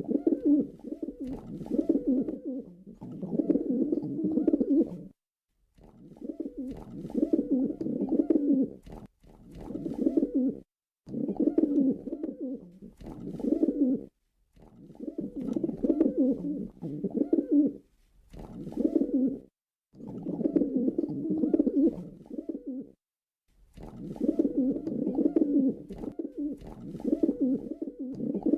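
Male pigeon cooing in repeated low, throaty phrases of one to three seconds, broken by short silent gaps.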